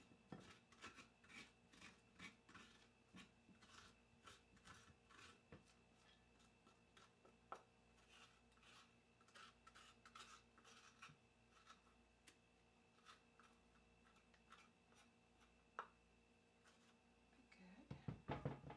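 Metal spoon scraping seeds and stringy pulp out of a halved butternut squash: faint, repeated scraping strokes, about two a second at first and sparser later. Near the end come a few louder knocks as the squash half is handled on the wooden cutting board.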